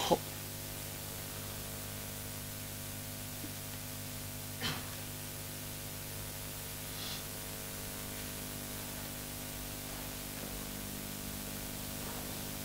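Steady electrical hum and hiss of room tone, with a faint short sound about five seconds in.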